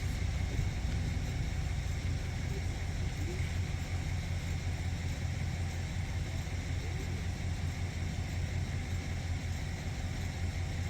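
Steady low rumble of a vehicle engine idling, with a faint hiss over it.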